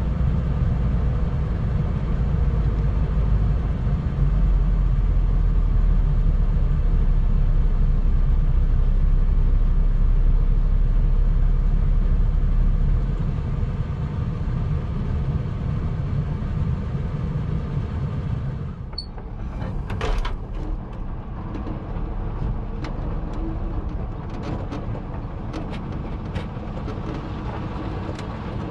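Scania R580 truck's V8 diesel engine running, a deep rumble that is heaviest in the first half and eases off about two thirds of the way through. Near the end there is a brief hiss, then scattered clicks and knocks.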